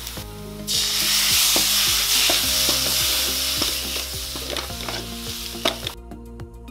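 Chopped tomatoes and onion masala sizzling in a metal pan while a spatula stirs them, with short scraping knocks of the spatula against the pan. The sizzle starts about half a second in and cuts off abruptly near the end.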